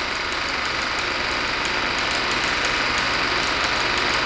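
Steady hiss with a low hum and a faint rapid ticking: the noise floor of an old film soundtrack transfer, with no distinct field sound.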